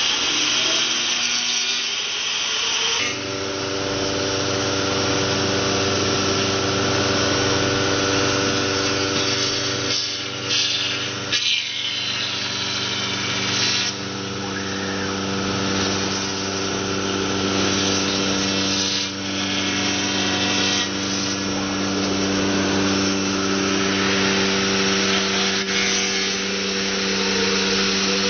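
Jinan Meiya 5-axis CNC router spindle milling a block of foam with an end mill. A rising whine over the first few seconds gives way to a steady hum of several tones over the hiss of the cutter chewing through the foam, with brief dips in the middle.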